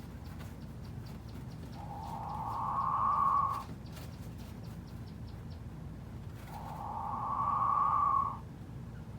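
King quail calling: two long calls, about two seconds each and a few seconds apart, each growing louder and then cutting off suddenly.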